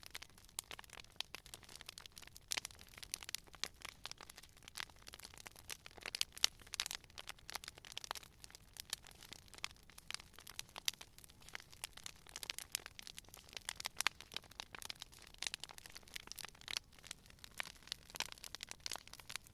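Campfire wood crackling and popping: irregular sharp snaps, several a second, over a faint hiss of burning.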